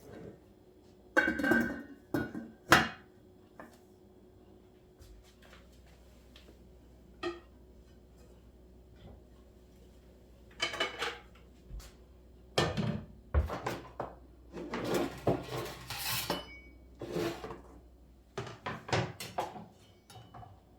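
Hard household objects being handled: irregular clinks and clattering knocks, a few near the start and a longer busy run through the second half.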